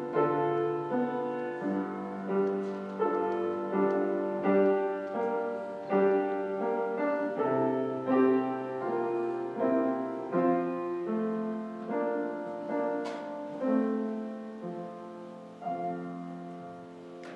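Piano playing slow, struck chords that are left to ring, quieting toward the end.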